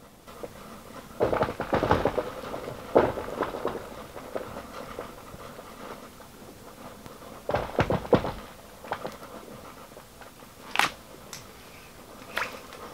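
Lake ice cracking, a series of sharp cracks and thuds, loudest in the first few seconds and again about eight seconds in.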